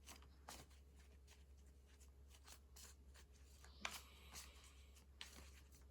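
Near silence: room tone with a low steady hum and a few faint light taps and rustles, the clearest a little before the middle.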